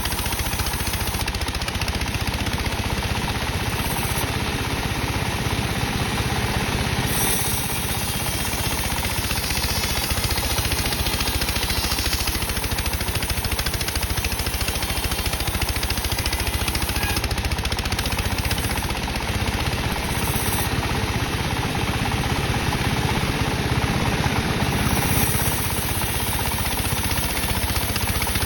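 Sawmill machinery running steadily, its saw cutting dry teak wood.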